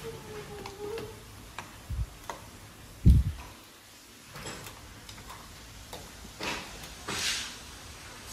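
Chopsticks stirring pieces of duck in a metal wok on a gas stove: scattered clicks and scrapes of the chopsticks against the pan, with one loud low knock about three seconds in.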